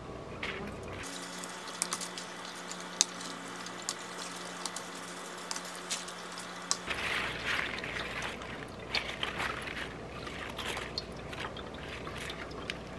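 Crisp romaine lettuce leaves snapped off the stalks of a hydroponic indoor garden and handled: many short sharp snaps and clicks with leafy rustling, thickest about seven seconds in, over a faint steady hum.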